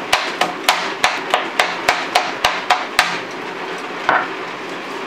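Chef's knife chopping avocado and banana on a plastic cutting board: a quick run of about a dozen sharp knocks, roughly three a second, stopping about three seconds in, followed by one softer, duller knock.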